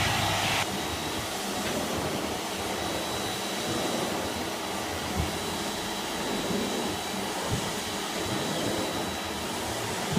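Neptune AquaFilter water-filter vacuum cleaner running steadily while vacuuming. Its hiss drops about half a second in, leaving a steady motor sound with a faint high whine, and a couple of light knocks come later.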